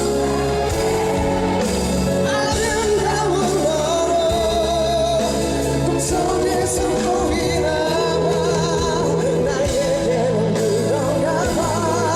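Live band playing a slow rock ballad, with a sung melody held in long notes with heavy vibrato over steady bass and keyboards.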